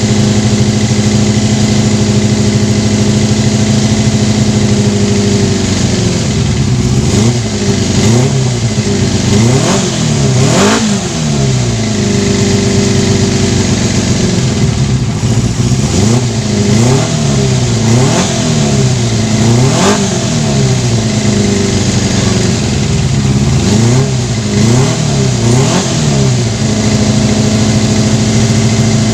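Yamaha FZR250 inline-four engine, just tuned up with new valve shims, running steadily, then revved up and down over and over with the throttle for about twenty seconds before settling back to a steady run near the end.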